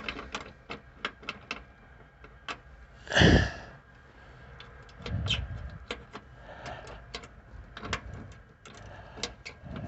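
Scattered, irregular small clicks and knocks of tools and metal hardware being handled while working on a seat-belt anchor bolt, with one louder, longer knock about three seconds in.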